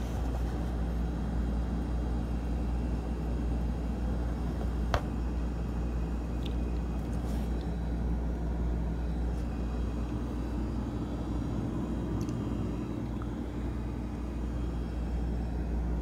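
Whirlpool side-by-side refrigerator running, a steady low hum picked up close at its bottom front grille. A single click sounds about five seconds in.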